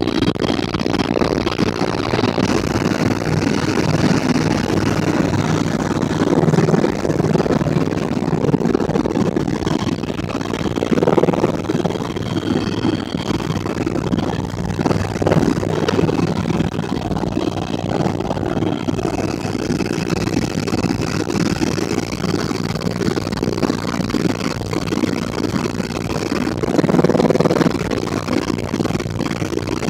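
Helicopter turbine engine and rotor running steadily during flight, heard from inside the cabin as a loud, even drone with a low hum.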